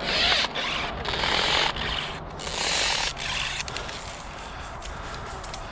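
Rustling, scraping friction noise in about five bursts of half a second to a second each, then dying down after about three and a half seconds.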